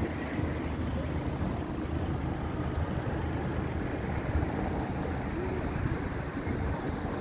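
Street background noise: a steady low rumble of road traffic, mixed with wind buffeting the microphone.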